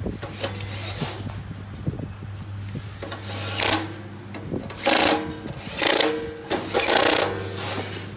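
Metal parts of a disc-roller cutting machine being handled: small clicks, then four harsh scrapes of metal on metal in the second half as parts at the gear-side end plate are worked loose or fitted, over a steady low hum.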